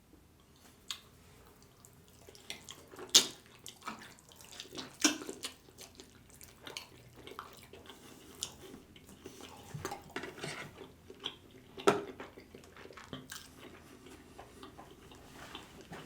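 Close-miked eating sounds: wet chewing and lip smacks on barbecued rib meat, irregular clicks and smacks with the sharpest about three seconds in and again near twelve seconds.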